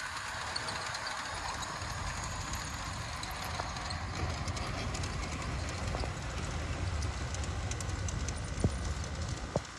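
G-scale garden train running on brass track, a steady low rumble with the wheels clicking over the rail joints, and two sharper clicks near the end.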